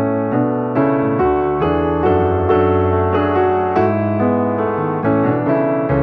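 Background piano music, with notes struck a few times a second over held chords.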